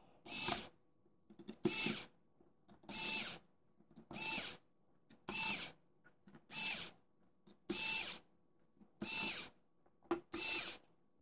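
Hitachi DB3DL2 cordless screwdriver driving small screws into a graphics card, in about ten short whirring runs roughly a second and a quarter apart, played at triple speed.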